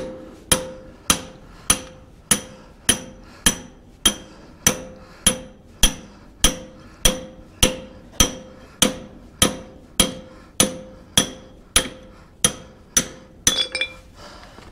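Steel hammer striking a steel drift punch over and over to drive out a tight kingpin from a backhoe's steering spindle, which has gone years without grease. The blows come evenly, a little under two a second, each with a short metallic ring, and a few lighter clicks follow near the end.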